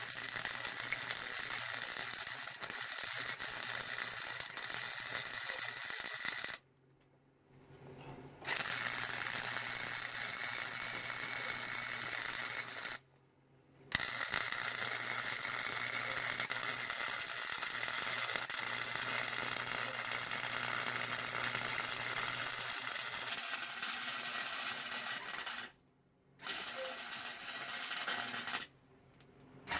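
Wire-feed (MIG) welder laying beads: a steady crackling sizzle with a faint hum, in four runs that stop abruptly with short pauses between as the trigger is released.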